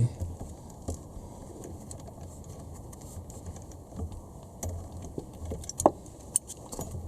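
Scattered small metal clicks and clinks of hand tools, an Allen key and ratchet, working the bolt on a shifter-rod joint as it is loosened slightly, with one sharper click about six seconds in.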